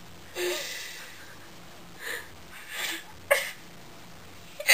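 A woman hiccuping: several short, sudden breathy catches, the sharpest two in the second half, after a longer breathy exhale about half a second in.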